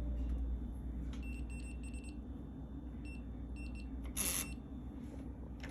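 Fingerprint smart door lock beeping electronically: a quick run of short high beeps, then a few more single beeps. About four seconds in there is a brief rasping burst of noise.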